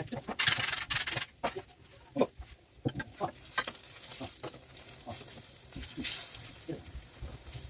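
Paratha cooking on a hot tawa griddle: oil spooned onto it sizzles in short hisses, loudest in the first second and again about six seconds in. A steel spoon clicks and scrapes against the bread and pan in between.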